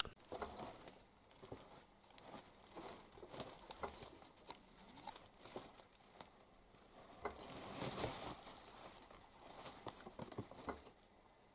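Faint rustling, crinkling and light scrabbling patter of a kitten climbing over woven plastic sacks and felt boots, in scattered spurts that are loudest about eight seconds in. A single sharp click at the very start.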